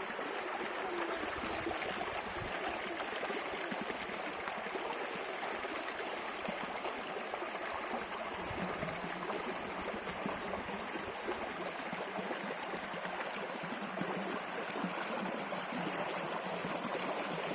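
Small river stream flowing steadily over rocks, a continuous rushing and gurgling of water.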